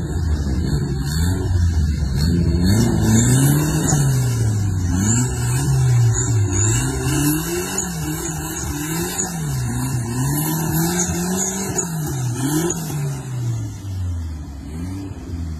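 A lifted Toyota pickup's engine revving up and down over and over as the driver works the throttle, with water splashing around the tyres.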